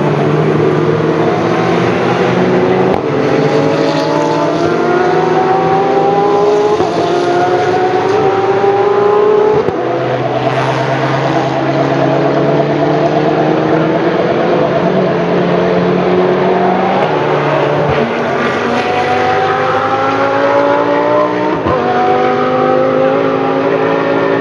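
Racing cars passing one after another, their engines overlapping and each rising in pitch through the gears with drops at the gear changes. The cars are under a double-yellow flag zone, held to 60 km/h with no overtaking.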